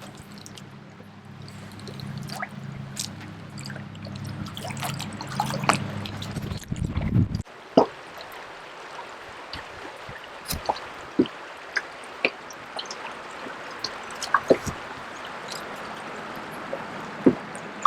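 Water dripping and trickling, with scattered small drips and splashes over a light running-water hiss. A low rumble fills the first seven seconds or so and cuts off suddenly.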